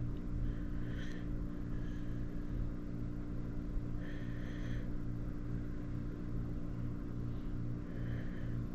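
A steady low hum runs throughout, with three faint, brief soft sounds: about a second in, around four seconds, and near the end.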